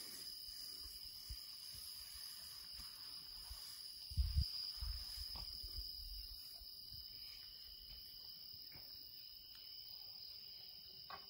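Steady high-pitched trilling of insects in long grass at dusk, with a few low thumps on the microphone about four seconds in.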